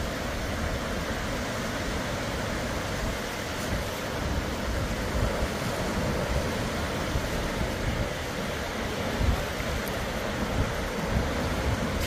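Steady wind rumbling on the microphone over the continuous wash of surf breaking on the beach.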